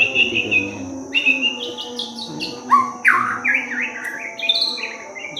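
White-rumped shama (murai batu) singing: quick runs of chirps and whistled notes, with a burst of loud sweeping notes about three seconds in.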